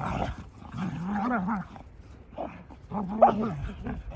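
Dogs growling in play as they wrestle, in several drawn-out wavering growls, with a short sharp louder bark about three seconds in.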